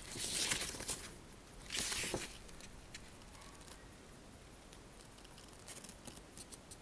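Paper pages of a model kit's instruction booklet being turned and handled: two brief rustling sweeps, the first at the start and the second about two seconds in, then a few faint paper ticks near the end.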